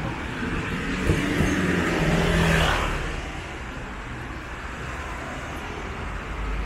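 Street traffic, with a motor vehicle passing close by: its engine and tyre noise build to a peak about two and a half seconds in, then fade, leaving a steady traffic hum.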